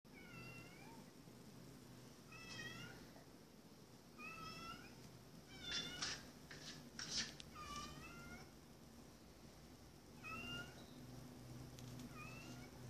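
A domestic cat outside a glass door meowing repeatedly to be let in, about six drawn-out calls heard through the door, which the owners hear as "hello". Around the middle, a few sharp knocks as the cat paws at the door.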